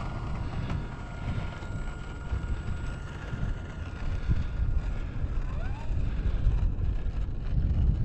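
Wind buffeting the microphone, the loudest sound, over the thin steady whine of the Turbo Timber Evolution's electric motor as the RC plane taxis down the runway. The whine fades about five seconds in, and a short rising whine follows shortly after as the throttle is moved.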